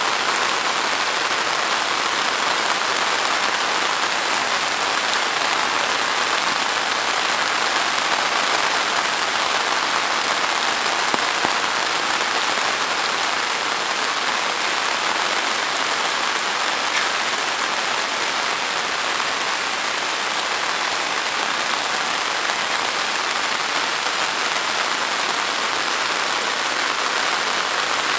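Heavy rain falling on dense foliage, grass and a waterlogged lane: a steady, even hiss that neither builds nor eases.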